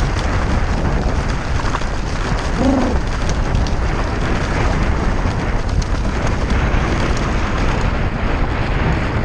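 Wind buffeting the microphone of a camera on a moving bicycle, a loud steady rush heaviest in the low end, with traffic noise mixed in. A brief faint pitched sound comes about three seconds in.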